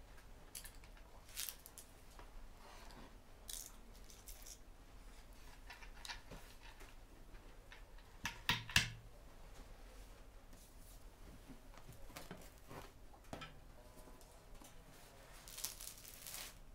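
Faint tableware handling sounds: scattered soft clicks and scrapes, a wooden serving board knocking down onto the table about halfway through, and a round flatbread being torn apart with a crackly rustle near the end.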